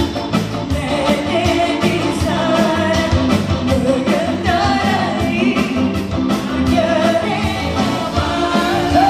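A pop song sung by a group of singers into microphones, over amplified music with a steady drum beat.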